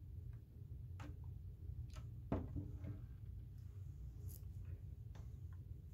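Quiet room tone with a steady low hum and a few faint clicks and taps, the loudest a little over two seconds in.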